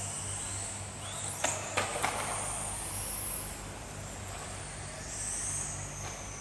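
Radio-controlled racing motorcycles running on the track, their motors making a high-pitched whine that rises and falls as they speed up and slow down. A few sharp knocks come close together about one and a half to two seconds in, over a steady low hum.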